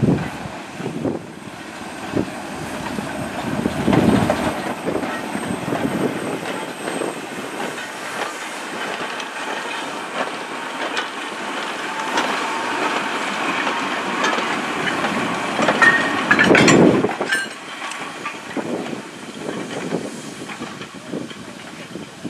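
A steam-hauled goods train of wooden open wagons and a brake van rolling slowly past, its wheels clicking over rail joints and pointwork. It swells about four seconds in and is loudest around sixteen to seventeen seconds, then fades as the brake van draws away.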